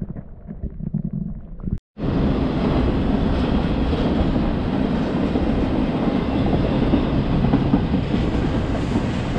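Muffled underwater gurgle from a camera held in the river, then, about two seconds in, a double-stack freight train rolling steadily across a stone arch railroad bridge with a continuous loud rumble of wheels on rails.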